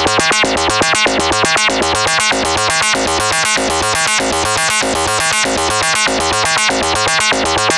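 Sonicware ELZ_1 synthesizer, recorded direct, playing a fast sequenced pattern of short, bright notes, about eight a second, over a low bass part.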